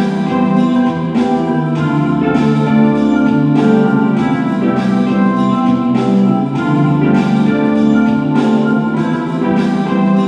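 Background music with held chords and a steady beat.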